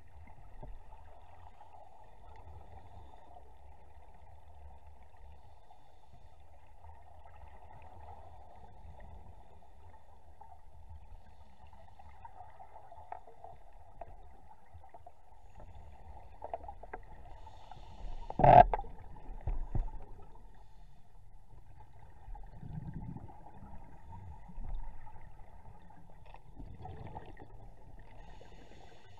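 Muffled underwater sound picked up inside a camera housing: a steady low hum and rumble, broken by a few short bursts, the loudest a sharp knock or bump about two thirds through.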